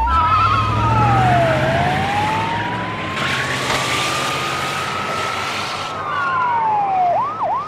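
Police car siren in a slow wail, falling, then climbing for several seconds and falling again, switching to a fast yelp near the end. The patrol car's engine runs underneath.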